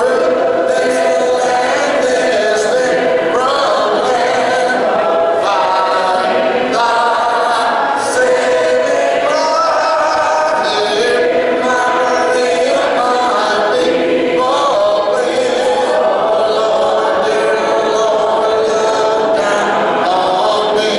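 A congregation singing a hymn a cappella, many voices together in parts with no instruments, in sustained sung phrases.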